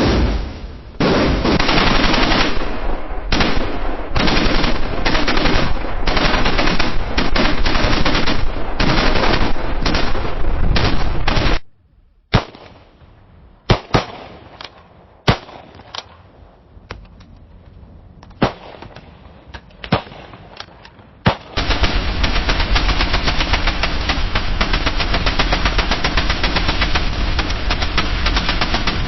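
Battlefield gunfire: long bursts of rapid automatic fire for the first twelve seconds or so, then a quieter spell with a handful of sharp single shots, then unbroken rapid automatic fire from about two-thirds of the way in.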